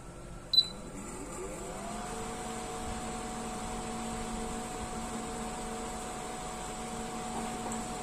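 Ion blower's electric fan motor spinning up, a whine rising in pitch over about a second and then running as a steady hum, now at a faster speed with its loose wire plugged back in. A single sharp click about half a second in.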